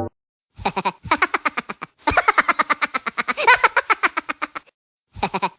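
Rapid chattering vocal pulses, about ten a second, in three runs broken by short pauses.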